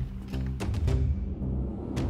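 Dramatic cinematic music: low held notes that change every fraction of a second, with a few sharp hits in the first half, then a noisy swell building through the second half.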